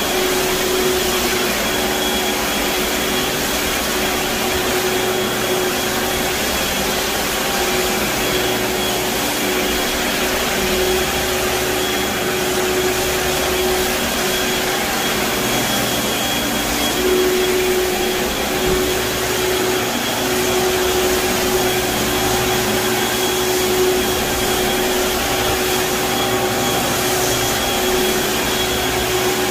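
Compact walk-behind floor scrubber-dryer running over a hardwood floor, its brush and suction motor giving a steady vacuum-like drone with a hum that fades for a few seconds partway through.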